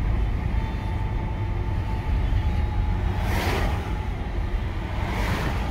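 A 1997 Mercedes-Benz E420 driving slowly, heard from inside the cabin: the 4.2-litre V8 and tyres make a steady low rumble. Two short rushing sounds come about three seconds in and again near the end, as other vehicles pass.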